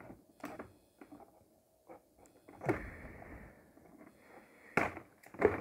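Scissors snipping through a clear plastic blister tray: a handful of sharp snips with the plastic crackling between them. The loudest snip comes near the end.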